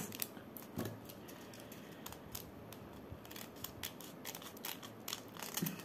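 Irregular small clicks and taps of diamond-painting work: plastic drill pen, tray and resin drills being handled.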